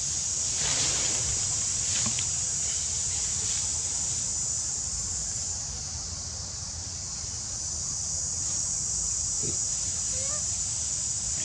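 Steady high-pitched insect drone over a low rumble of wind on the microphone, with a couple of faint short calls near the end.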